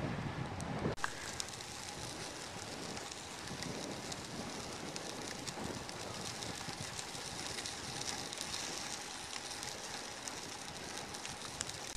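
Bicycle coasting downhill on a trail: a steady rush of tyre noise and wind on the microphone, speckled with fine crackling from the tyres on the grit, with a low gust of wind buffeting in the first second.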